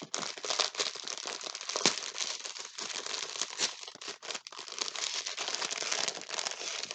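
Plastic packaging crinkling and crackling as it is handled and pulled open, with some tearing, an irregular stream of sharp crackles throughout.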